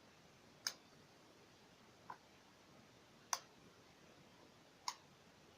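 Four sharp clicks spaced a second or so apart, the second one fainter, over near silence.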